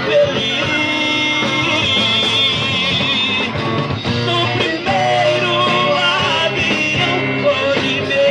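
Live band music: an instrumental passage between sung lines, with a wavering lead melody over steady bass and accompaniment.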